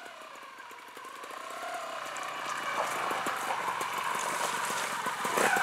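Trials motorcycle engine running at low revs, its pitch rising and falling with the throttle. It grows steadily louder as the bike comes closer.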